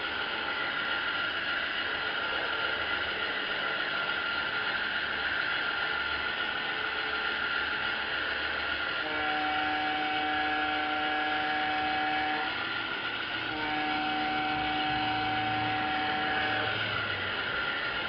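Ride-along sound from a G scale SD45 model diesel locomotive running on a garden railway: a steady running noise of its motor and wheels on the track. Over it come two long multi-note horn blasts, starting about nine seconds in and about thirteen and a half seconds in.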